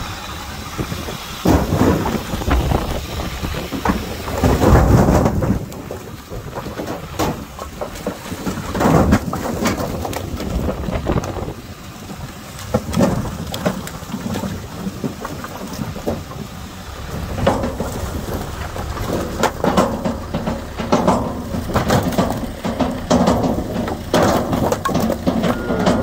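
Split birch firewood tumbling from a loader bucket into a pickup truck's bed: a long, uneven clatter of logs knocking on the metal bed and on each other, coming in several louder surges.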